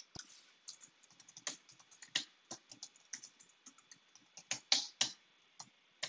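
Typing on a computer keyboard: a run of irregular keystroke clicks, with a few louder presses about four and a half to five seconds in.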